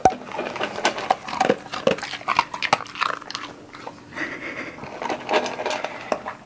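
Golden retriever eating dry kibble from a stainless steel bowl: a run of irregular crunches and small clicks as it chews and noses the food around the bowl, opening with one sharp click.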